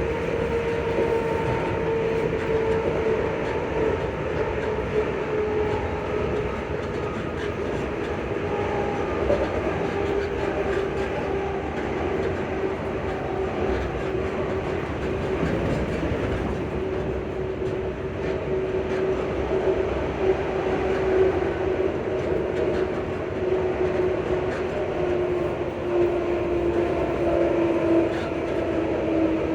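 On-board sound of a ScotRail Class 334 electric multiple unit running: the traction motors give a steady whine that slowly falls in pitch, over the rumble of the train on the track.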